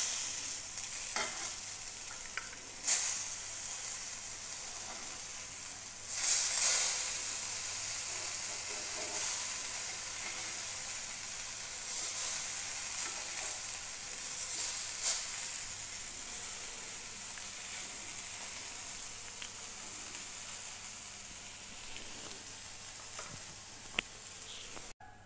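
Spice-coated brinjal slices shallow-frying in a little oil in a nonstick pan: a steady sizzle, louder about six seconds in. A few sharp clicks come as the slices are turned with metal tongs.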